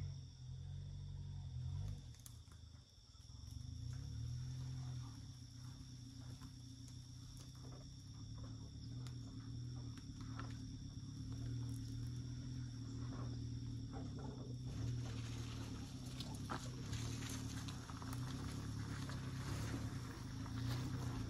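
Subaru Sambar kei truck's small 660 cc engine running as the truck creeps along a forest track toward the listener, its note swelling and easing with the throttle. Sticks and brush crackle under the tyres, and both grow louder in the last few seconds as the truck draws near.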